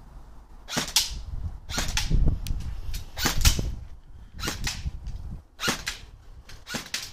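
G&G CM16 airsoft electric rifle with an upgraded motor firing single shots on semi-auto: about six sharp cracks, roughly one a second.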